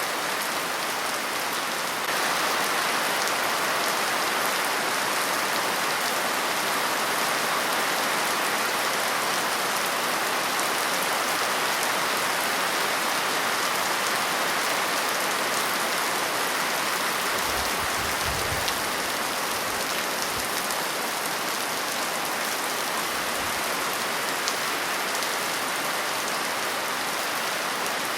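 Steady rain falling on a surface, a dense even hiss that gets slightly louder about two seconds in, with a few faint low rumbles past the middle.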